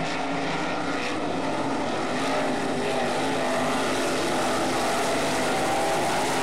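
Several winged sprint car engines running together as the pack laps the dirt oval, a steady, layered engine drone whose pitch shifts as the cars go through the turns, getting a little louder about two seconds in.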